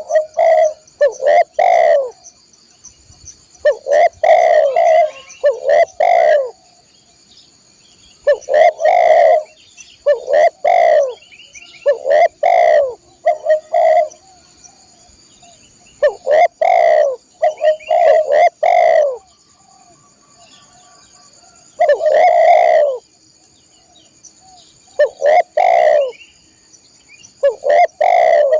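Spotted dove (tekukur) cooing loudly, repeating its phrase of a few coo notes again and again with short pauses between the phrases.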